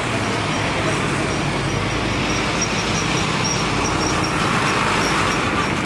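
Airbus A350-941 on final approach, its Rolls-Royce Trent XWB turbofans giving a steady jet rush that grows a little louder as the aircraft comes closer.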